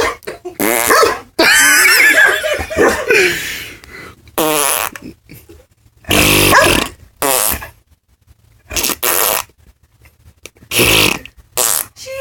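Imitation fart noises made by a person, answered by a dog barking, going back and forth in short bursts with brief silences between them.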